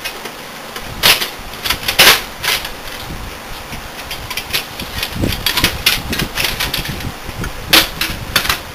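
Irregular clicking and knocking of metal parts being handled inside a desktop computer case as the hard drive's screws are worked on, with sharp clacks about one and two seconds in and again near the end.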